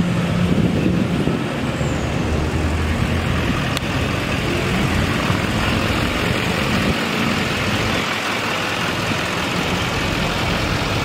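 A truck engine idling: a steady low hum under a wash of outdoor noise, with the hum strongest in the first couple of seconds.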